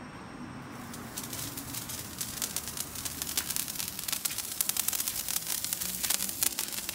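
A firework spraying sparks: a steady hiss with rapid crackling, starting about a second in and growing louder.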